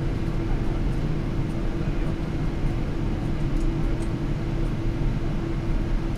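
Steady cabin noise inside a Japan Airlines Boeing 777-300 in flight: a low rumble of engines and airflow with a steady hum running under it, and a few faint ticks.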